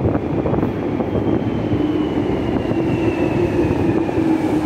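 London Underground train running along the platform: a steady rumble and hum with a thin high whine that falls slowly in pitch, echoing in the tiled station.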